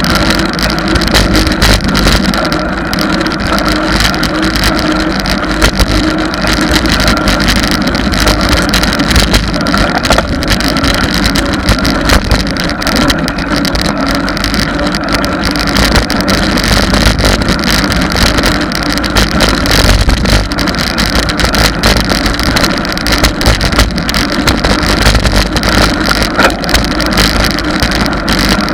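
Loud, steady rush of wind and road noise on the microphone of a camera mounted on a moving bicycle.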